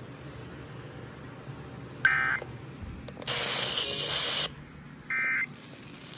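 Emergency Alert System end-of-message data bursts: two short, shrill digital squawks about three seconds apart, signalling the end of the alert. Between them is a louder burst of static-like noise lasting over a second.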